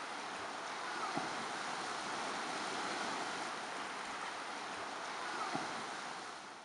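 Shallow surf washing over a sandy beach: a steady rush of water, fading out at the very end.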